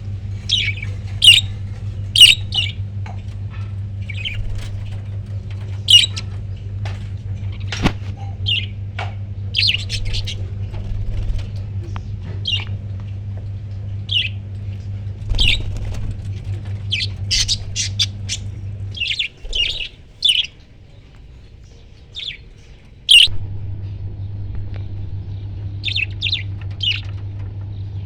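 Parrots giving short, sharp squawks and chirps at irregular intervals, over a steady low hum that cuts out for a few seconds about two-thirds of the way through.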